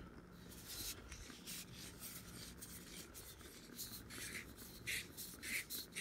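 Faint scratchy rubbing and scraping of a metal-bodied Ozark Trail focusing LED flashlight being handled and its head twisted, with a few sharper scrapes in the second half.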